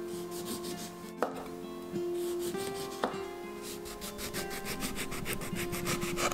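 Kitchen knife slicing a lemon on a wooden cutting board: short, quick sawing strokes of the blade through the rind and flesh at about five a second, with a couple of knocks as the blade meets the board. Soft background music with held notes runs underneath.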